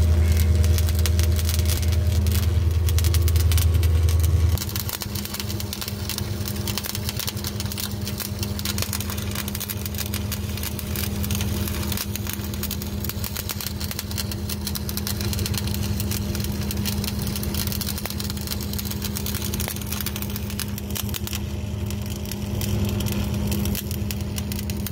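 Electric arc welding overhead on steel: the arc crackles and sputters steadily, over a steady electrical hum. A deeper low hum cuts off suddenly about four and a half seconds in.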